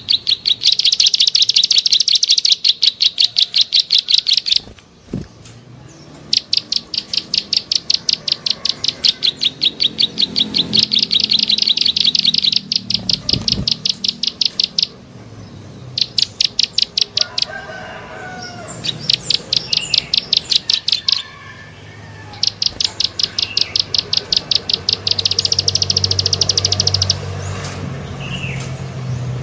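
Prenjak sawah (a prinia) repeating its clicking call as a lure sound: long runs of rapid, sharp ticking notes lasting several seconds each, with short breaks between. A fainter, lower bird call, rooster-like, comes in around two-thirds of the way through.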